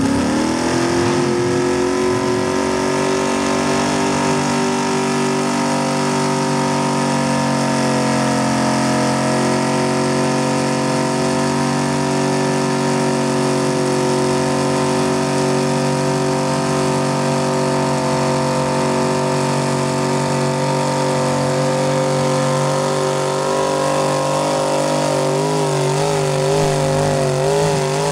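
A mud-bogging Jeep's engine revs up quickly and is then held at high, nearly constant revs while its tires spin through thick mud. Near the end the pitch wavers up and down.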